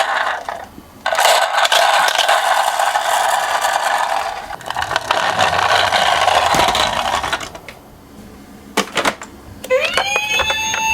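Toy minicars rolling and rattling down a slope for several seconds, then two sharp clicks. Near the end a siren sound starts, rising in pitch and then holding steady.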